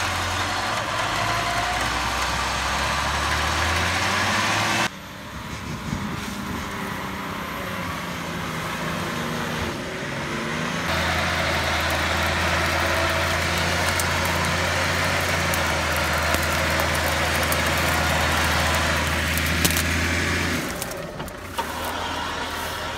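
Nissan Patrol off-roader's engine running steadily under load in mud, with a strong low drone. The sound changes abruptly about 5 and 11 seconds in and again near the end, where the footage is cut.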